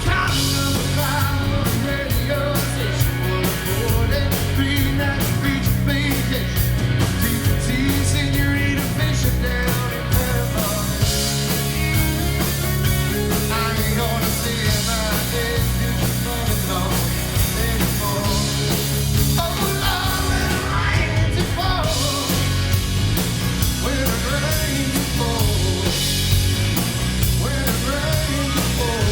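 Live band playing an upbeat country-rock song with a full drum kit, guitars and bass, and a lead singer's voice.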